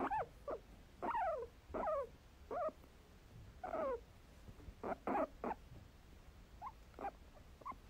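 A guinea pig squeaking: a series of short calls, each sliding steeply down in pitch, about one a second, with a few shorter, fainter squeaks near the end.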